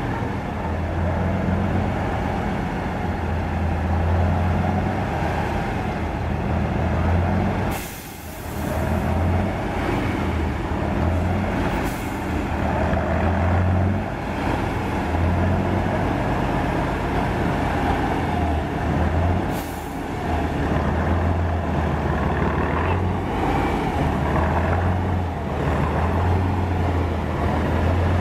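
Eight-wheeled trial truck's engine working at low speed through rough ground, rising and falling with the throttle and dropping away briefly twice. Three short hisses of air are heard over it.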